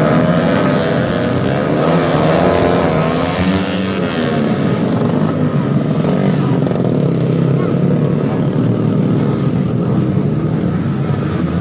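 Motorcycle engines revving, their pitch swinging up and down in the first few seconds, then running steadier.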